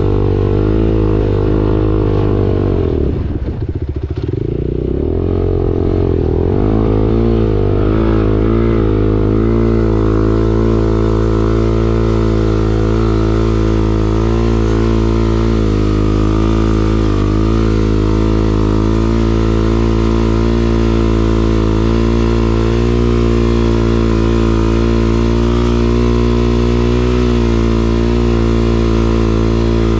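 BSE T8 motorcycle engine running at a steady, loud pitch; about four seconds in the revs dip and climb back, then hold nearly constant.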